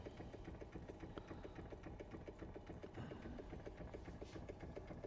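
Doll 387/3 model steam engine running on steam: a faint, fast, even ticking and chuffing from the small engine.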